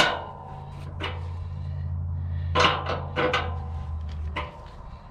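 Clicks and clanks of a wrench on the adjusting nut of a snow plow blade's trip-spring eyebolt as the spring tension is tightened. A sharp click comes at the start and a few more follow over the next few seconds, over a steady low hum that stops near the end.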